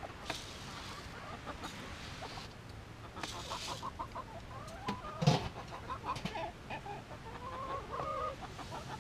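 Chickens clucking in short, scattered calls, with a sharp knock about five seconds in and a few brief rustles.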